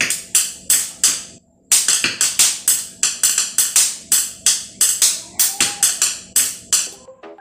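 Pencils tapped on a glass tabletop in a steady rhythm, about three sharp taps a second, with a brief pause about a second and a half in.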